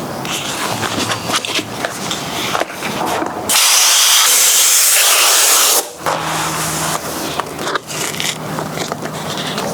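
Hand work on a car door armrest: scraping, rubbing and clicking. A loud steady hiss lasts about two seconds a few seconds in.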